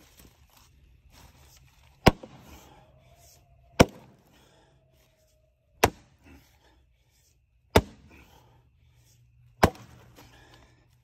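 Splitting axe striking a firewood round five times, about two seconds apart, each blow a sharp crack of steel into wood.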